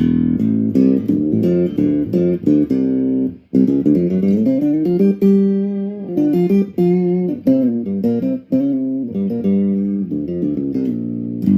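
Acoustic guitar played through a Behringer UO300 octave pedal set to its high setting, picking a quick run of single notes, with a brief pause about three and a half seconds in.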